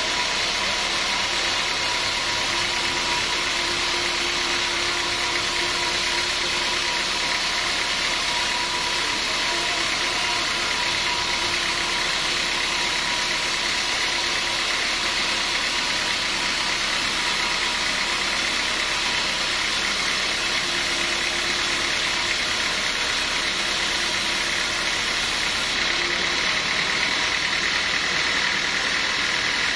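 Sawmill machinery running steadily, an engine-like hum with a constant whine and hiss, a little louder near the end.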